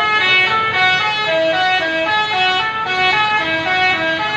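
Bus telolet horn, a set of musical air-horn trumpets, playing a quick tune of short notes that step up and down several times a second.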